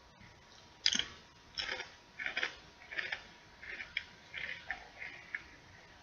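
Potato chips being chewed close to the microphone: a string of short, crisp crunches roughly every two-thirds of a second, starting about a second in, the first one the loudest.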